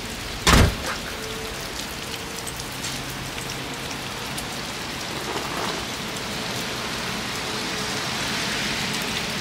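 Steady rain falling on wet ground, with one short thump about half a second in.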